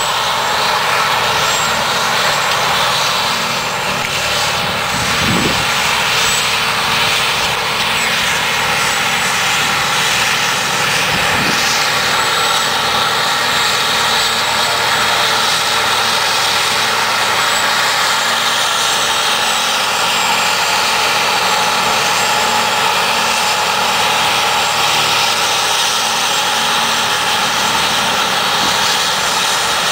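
New Holland 2025 self-propelled forage harvester running under load while picking up and chopping grass windrows for silage: a loud, steady mechanical drone with high whining tones from the engine and chopping drum.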